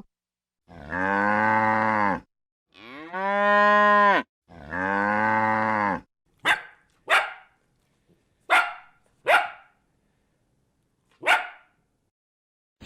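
A cow mooing three times, each a long, low call of about a second and a half, the second rising and then falling in pitch. Then a dog barking five times in short single barks, spaced a second or two apart.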